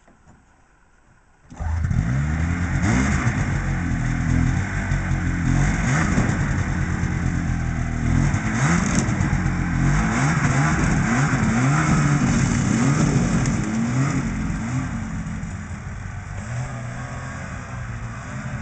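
Ski-Doo Blizzard snowmobile's two-stroke engine, coming in abruptly about a second and a half in and revved up and down again and again. Near the end it settles to a lower, steadier running.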